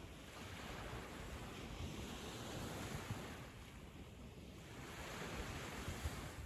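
Ocean waves washing onto a sandy beach, the surf swelling and fading, with some wind noise on the microphone.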